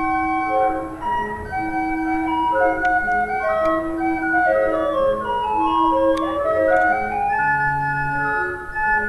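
Hand-cranked street barrel organ playing a tune: held notes stepping up and down over a bass line.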